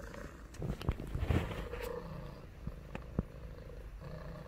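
A calico cat purring, with a few sharp knocks about a second in.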